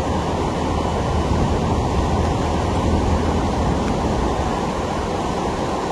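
Steady rushing noise, strongest in the low range, with no break or change.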